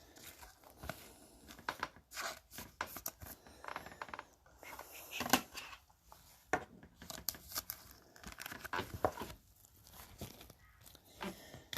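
Trading-card pack wrapper crinkling and tearing as a pack is opened and the cards are handled, giving a run of irregular crackles and rustles.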